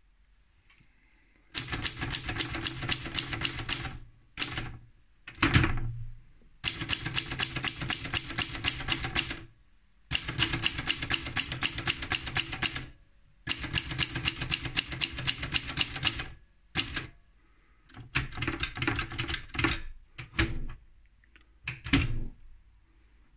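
Adler Junior E portable manual typewriter being typed on: rapid runs of keystrokes, each a couple of seconds long, with short pauses between and a few single louder knocks.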